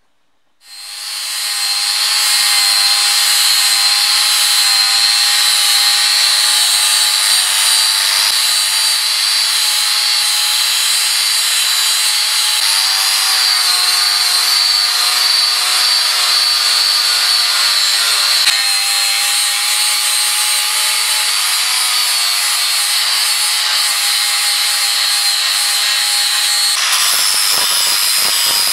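Angle grinder with an abrasive disc grinding the steel of an axe head, starting about half a second in. Steady grinding with a high whine.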